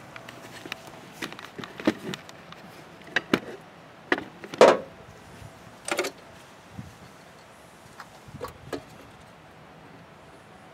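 Scattered clicks and knocks, about ten short sharp ones at irregular intervals, from hands working at the engine's vacuum hose connections and fittings.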